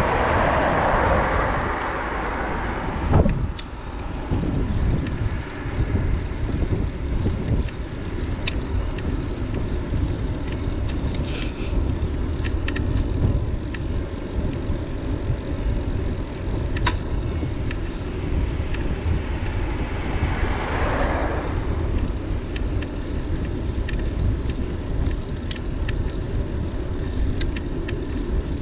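Wind rumbling on the microphone during a bicycle ride. A louder rushing noise cuts off suddenly about three seconds in, and a similar one swells and fades about twenty seconds in.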